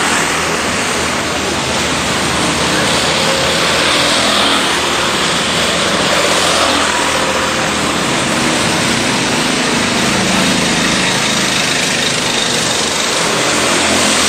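Racing kart engines running on the track, their pitch rising and falling as the karts accelerate and pass, over a steady rush of noise.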